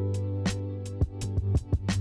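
Background music with a steady beat: held bass and guitar-like notes under regular drum hits.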